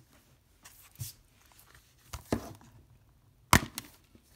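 Plastic DVD case being handled, with a few light clicks and knocks, then one sharp plastic snap near the end as the case is popped open.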